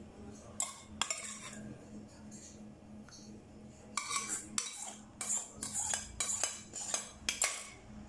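Metal spoon clinking and scraping against a cooking pot as sauce is ladled out over a plated fish: two sharp clinks in the first second or so, then a quick run of scrapes and clinks from about four seconds in.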